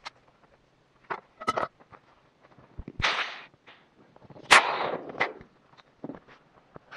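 A string of sharp knocks and clacks, about seven over a few seconds, from a small folding boat being taken apart and packed up. The two loudest knocks are each followed by a short rushing or scraping noise.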